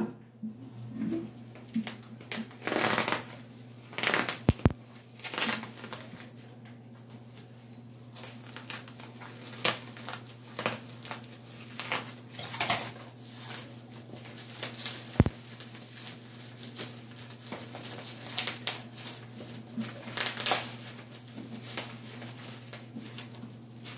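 Plastic bubble wrap crinkling and crackling as scissors cut along it and hands pull it open, in irregular bursts throughout, with a couple of sharp clicks.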